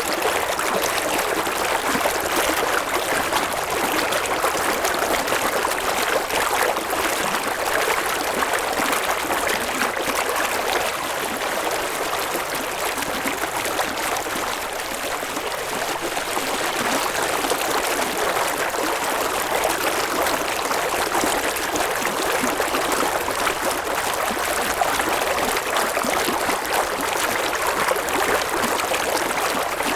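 River water flowing and babbling over stones, a steady, even rush of water with dense small splashes.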